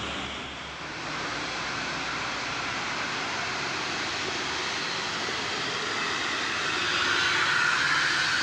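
Heavy vehicle engine running as it approaches on a hill climb, growing louder toward the end.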